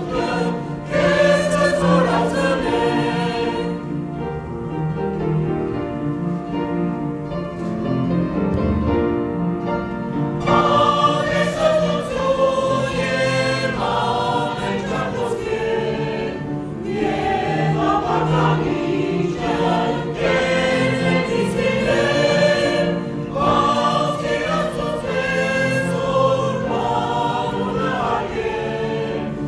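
Church choir singing a hymn, many voices in harmony, moving from phrase to phrase at a steady level.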